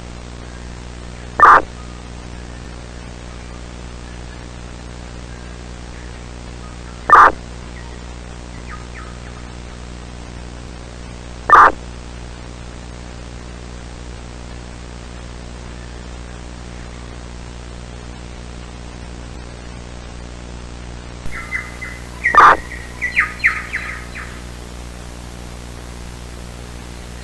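Bird calls: three short, harsh caws a few seconds apart, over a steady static hiss and electrical hum. Near the end a fourth caw comes among a flurry of quicker, higher chirps.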